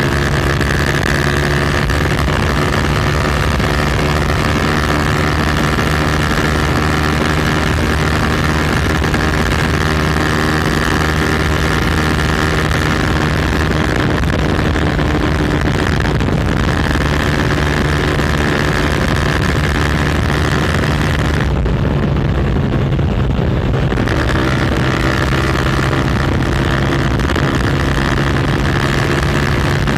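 Motorcycle with a loud aftermarket exhaust running at a steady engine speed while being ridden. The engine pitch holds steady, and the higher part of the sound briefly dulls about two-thirds of the way in.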